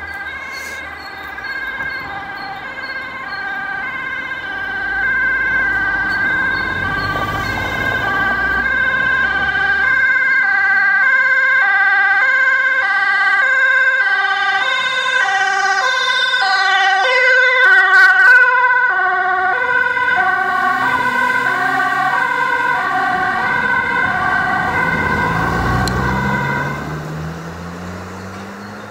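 Dutch ambulance's two-tone siren, alternating between a high and a low note on an urgent run, growing louder as it approaches and sliding down in pitch as it passes. The siren cuts off near the end, and a vehicle engine speeds up.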